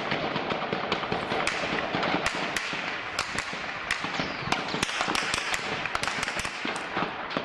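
Small-arms gunfire: many sharp, irregular shots, at times several a second, over a steady noisy background.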